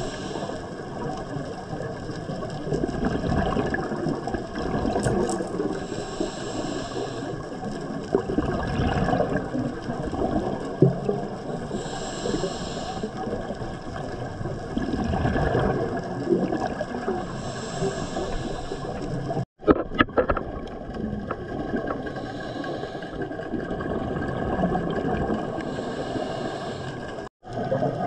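Scuba diver breathing through a regulator, heard underwater on the camera's microphone: a hiss of inhalation about every three seconds, with the rumbling gurgle of exhaled bubbles between. The sound briefly cuts out twice.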